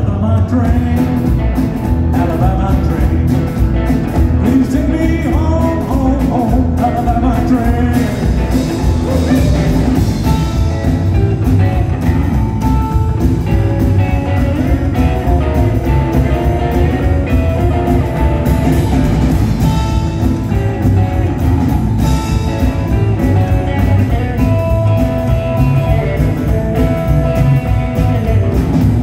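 A rockabilly band playing live and amplified, with a steady beat: upright double bass, drum kit and electric guitar, and a man singing.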